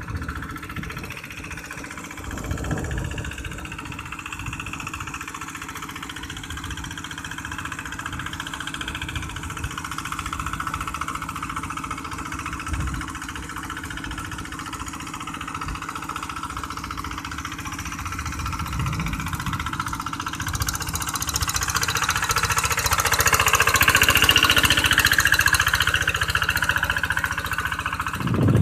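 Single-cylinder diesel engine of a walk-behind two-wheel hand tractor running steadily under load while plowing a flooded rice paddy, getting louder over the last several seconds.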